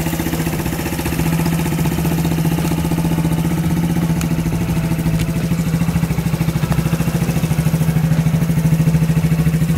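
Suzuki GZ150's single-cylinder four-stroke engine running steadily at low revs, with a fast, even exhaust pulse and one steady pitch, getting slightly louder toward the end.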